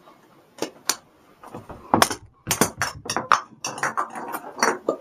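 Juggling balls being tossed and caught: a few sharp knocks and taps early on, then a quick, uneven string of them through the second half.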